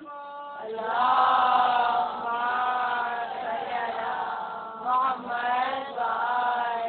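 Congregation of women reciting salawat together in a chant. One voice is heard at first, then many voices join about half a second in, in long rising and falling phrases.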